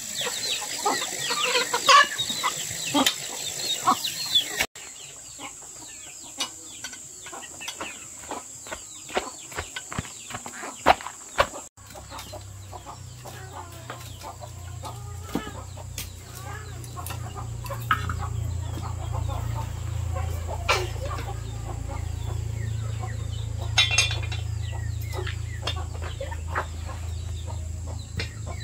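Chickens clucking, with scattered knocks and clatter. The sound changes abruptly twice, and a low steady hum comes in about twelve seconds in.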